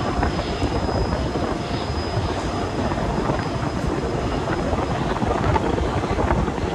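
A passenger train running at speed, heard from outside the coach side: a steady rush and rumble of wheels on rail and wind, with a thin high whine that fades about five seconds in.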